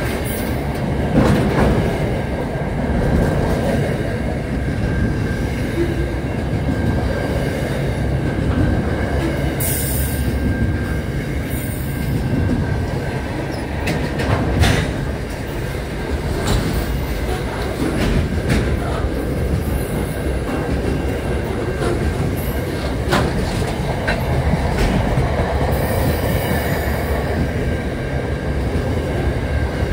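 Container freight train rolling past at speed: a continuous heavy rumble of wagons and wheels on the rails, with a thin, steady high squeal over it and a few sharp clacks now and then.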